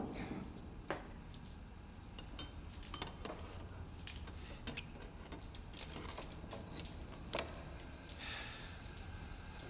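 Scattered light clinks and knocks of small hard objects, about half a dozen, over a low steady hum.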